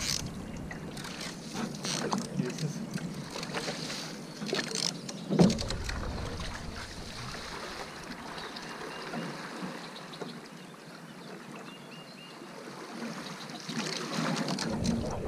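Single-bladed canoe paddle strokes dipping and splashing in calm water beside a narrow racing canoe, with gusts of wind on the microphone at the start and again near the end. One louder thump about five seconds in.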